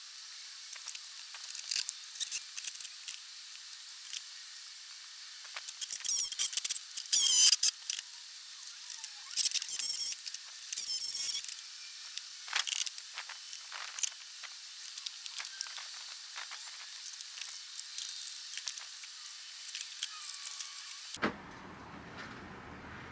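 Handling and tool noises from hands-on building work: scattered clicks and taps with several short, loud hissing scrapes, all thin and high-pitched with no low end.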